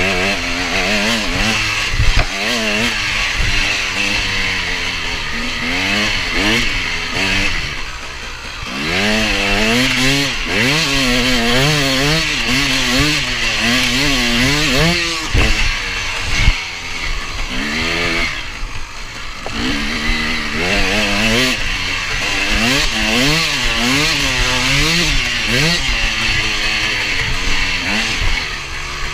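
KTM 250 EXC two-stroke enduro engine heard on board under riding load, its revs climbing and dropping over and over as the throttle is opened and closed through the gears. There are two short lulls where the throttle is shut, about 8 seconds in and again around 18 seconds, and wind rushes over the microphone.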